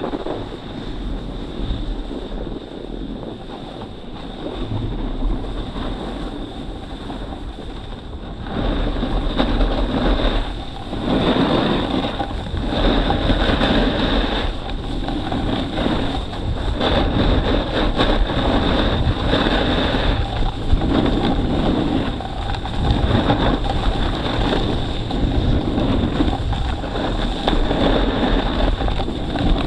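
Wind buffeting the microphone and a snowboard sliding over snow during a run. The rushing grows louder about eight seconds in, then swells and fades every second or two.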